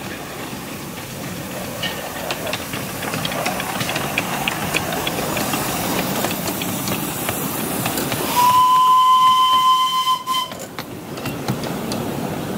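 A 10¼-inch gauge miniature steam locomotive, the H.C.S. Bullock Pacific "The Monarch", running past with its passenger train, its wheels clicking on the rails. About two-thirds of the way in it blows one steady whistle blast lasting about two seconds, the loudest sound.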